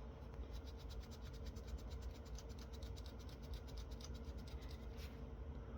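Faint, rapid, rhythmic scratching of adhesive being scrubbed off the top of a small surface-mount PIC microcontroller chip on the UPS circuit board.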